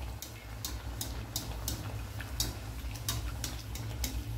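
A rice-flour vada deep-frying in hot coconut oil, the oil crackling and popping in short, irregular sharp clicks as it is spooned over the top to make the vada puff up. A steady low hum runs underneath.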